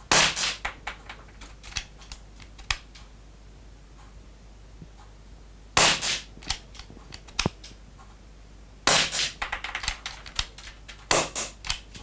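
Marushin COP .357 four-barrel airsoft derringer fired four times, one shot per barrel: sharp cracks at the start, about six seconds in, about nine seconds in and about eleven seconds in, each followed by a short run of smaller clicks.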